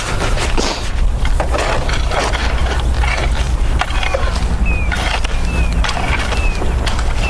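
Mulch being spread and smoothed out, a run of short scraping and crunching strokes over a steady low rumble. In the second half a bird gives four or five short falling chirps.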